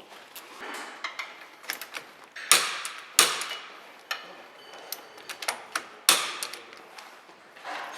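Workshop sounds of tools and metal parts being handled: a run of small clicks and ticks, with three louder clanks, two close together a third of the way in and one about three-quarters of the way through.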